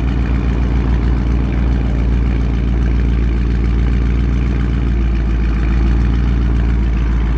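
Dodge Charger 392 HEMI V8 with a mid-muffler-delete exhaust idling steadily, a deep, even burble from the exhaust tips.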